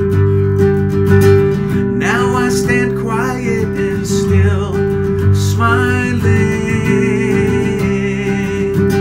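Acoustic guitar strummed steadily in chords, with a man singing over it from about two seconds in.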